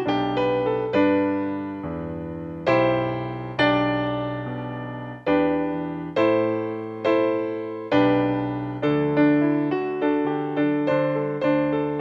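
Slow instrumental piano music: single notes and chords struck one after another, each left to ring and fade, with a few longer-held chords a few seconds in.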